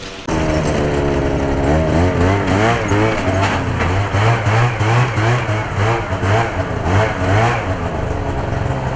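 A vehicle engine running under way, its revs rising and falling again and again.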